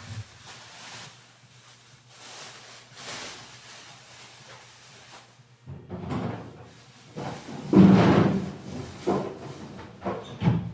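Refrigerator contents being handled and put away: a soft rustling for the first few seconds, then a run of knocks and clunks of containers, shelves and drawers, loudest about eight seconds in.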